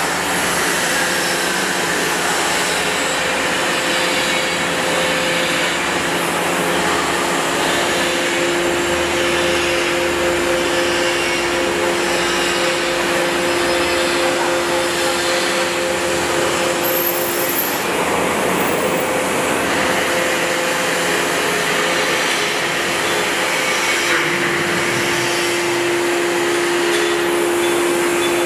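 Hydraulic static pile driver's power unit running under load as its crane boom slews, a steady mechanical hum with a whine on top. The whine fades out a little past the middle and comes back a few seconds later.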